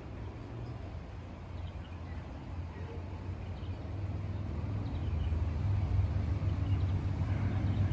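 Outdoor ambience: a steady low rumble that grows louder about halfway through, with a few faint bird chirps above it.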